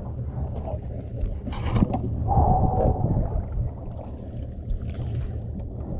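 A diver in a wetsuit climbing over the side into a small fibreglass boat: knocks and scuffs against the hull and water splashing, over a steady low rumble.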